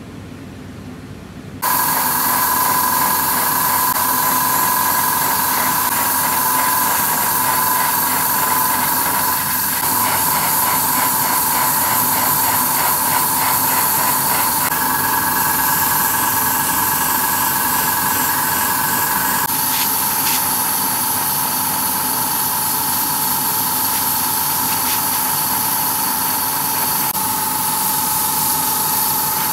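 Airbrush spraying paint: a loud, steady hiss of compressed air that starts abruptly about two seconds in, with a steady whistling tone in it that shifts slightly in pitch a few times.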